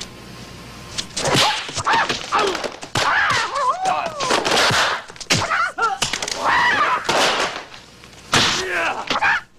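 A martial artist's shrieking, wavering kiai cries, several in a row, with sharp punch-and-kick impact sound effects between them.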